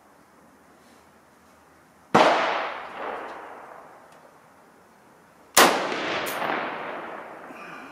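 Two rifle shots about three and a half seconds apart, each a sharp crack followed by a long echoing decay off the covered firing line.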